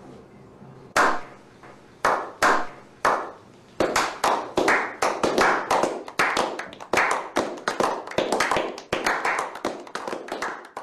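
A small group slow-clapping: single claps about a second apart at first, then quickening into steady faster applause from about four seconds in.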